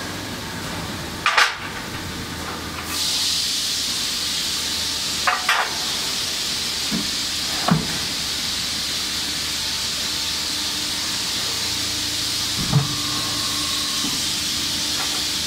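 Work at a 300-ton hydraulic trimming press: sharp metal clanks a few times over a low hum, and from about three seconds in a steady hiss that keeps going.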